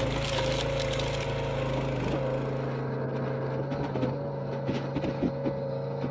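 Engine of a wood-processing machine running at a steady pitch. From about halfway in there are irregular knocks and clatter, as of wood being handled.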